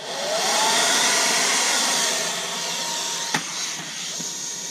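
A 50mm electric ducted fan in a 3D-printed model jet running at full thrust: a loud airy rush with a whine that rises in pitch during the first second, then holds steady. A little over three seconds in, a sharp knock as the jet hits the ground; the whine's tone cuts off, and the rush carries on lower before fading near the end.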